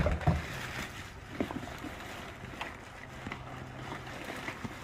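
Black plastic garbage bag rustling and crinkling as hands rummage through it, with a loud knock right at the start and scattered small clicks of items shifting inside.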